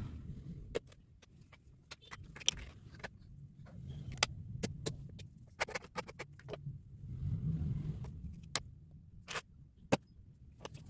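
Kinetic sand being cut and handled: scattered sharp clicks and small crunches over a low, uneven rumble.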